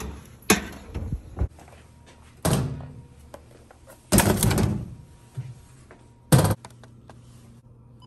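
A pull-out trash drawer and a metal locker or cabinet being handled, heard as several separate knocks and thuds. The loudest, a short sharp slam like a door shutting, comes about six seconds in.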